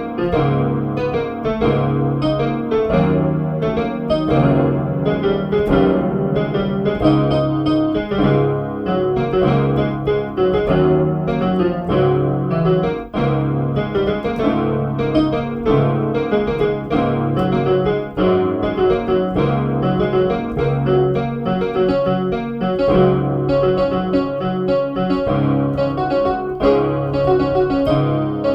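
Outro song played on an electronic keyboard in a piano voice, with a bass line that repeats steadily under the melody.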